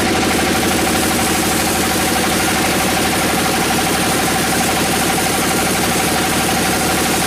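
An engine running steadily at an even speed, with a fast regular pulse and a steady whine over it.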